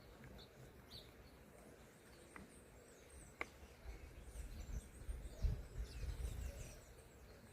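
Faint scattered bird chirps and calls, with two sharp clicks a few seconds in. A louder low rumble rises in the second half.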